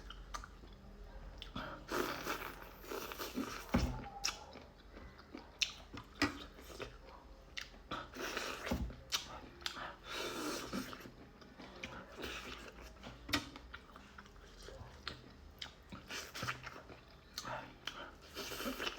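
A person chewing and eating spicy noodles with corn close to the microphone: irregular wet chewing, biting and crunching clicks throughout.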